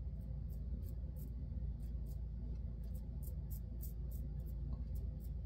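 Timeless 0.68 titanium safety razor shaving stubble on a lathered upper lip: quick short strokes, each a faint scratchy rasp, about three or four a second.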